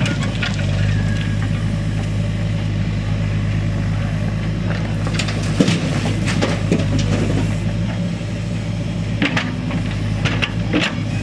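Diesel engine of a backhoe loader running steadily, with stones clattering and knocking several times as they are loaded, mostly around the middle and near the end.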